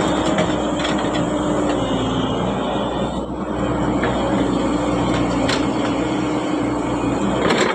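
Heavy earthmoving machinery running: a diesel engine's steady hum that shifts slightly in pitch as the load changes, with a few light knocks.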